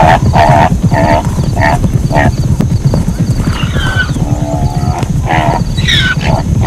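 Zebra calling: a run of short, yelping barks about two a second, then longer, wavering braying calls in the second half, over a steady low rumble.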